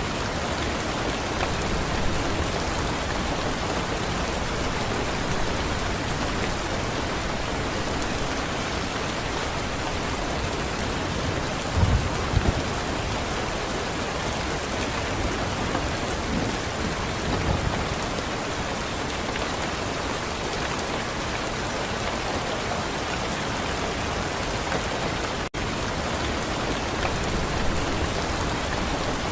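Steady rain pattering on a surface, an even hiss throughout. Two short low thumps come about twelve seconds in, with softer low rumbles a few seconds later, and the sound drops out for an instant about 25 seconds in.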